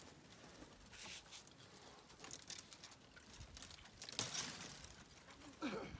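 Soft rustling, tearing and crackling with scattered light knocks, in several short bursts, and a brief rising squeak near the end.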